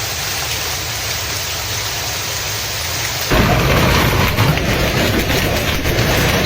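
Heavy storm downpour, a dense steady hiss of falling precipitation. About three seconds in it switches abruptly to a louder stretch with a low rumble and dense crackling.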